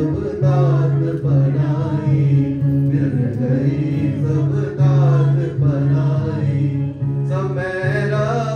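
A man singing a Sikh kirtan hymn to harmonium accompaniment: a gliding, ornamented vocal melody over a steady held low note that breaks off briefly every second or so.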